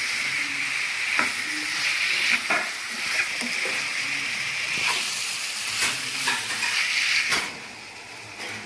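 Chicken pieces and onion sizzling in hot oil in a non-stick pan, stirred with a spatula that scrapes the pan about once a second. Near the end there is one sharp clack, and the sizzle then turns quieter and duller under a glass lid.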